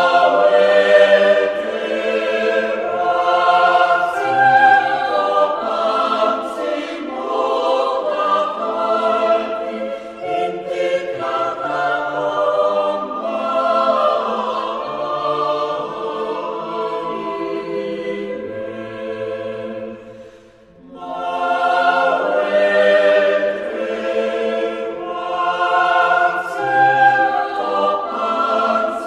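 Choir singing Latin American Baroque choral music in long-held chords over a low bass line. The singing breaks off for a moment about twenty seconds in, then a new phrase begins.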